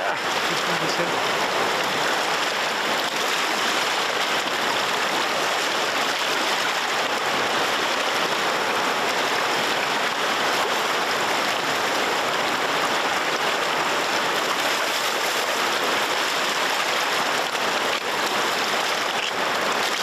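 Fast-flowing river rushing over rapids, a steady even rush of water.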